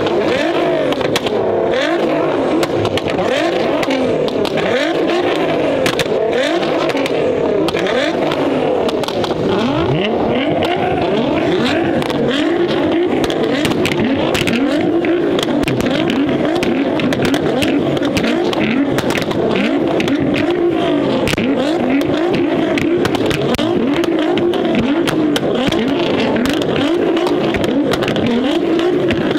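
Several Nissan GT-R twin-turbo V6 engines revving at the same time, their pitches rising and falling over one another without a break, with frequent sharp exhaust crackles.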